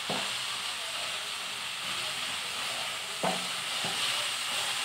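Sliced onions and tomatoes sizzling steadily in hot oil in a frying pan, stirred with a wooden spatula that knocks against the pan a few times.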